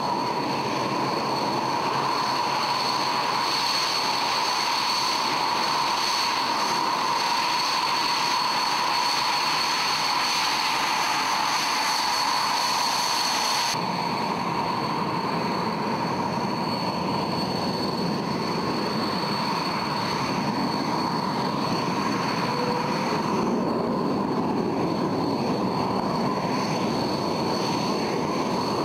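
Mirage 2000 fighter's single SNECMA M53 turbofan running at low taxi power: a steady high whine over a broad rush of jet noise. The sound changes abruptly about halfway through, when a second taxiing jet takes over.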